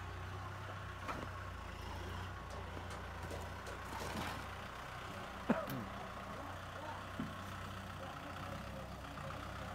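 Diesel engine of a farm tractor with a front dozer blade running steadily as it drives through loose soil, with a few short sharp knocks, the loudest about halfway through.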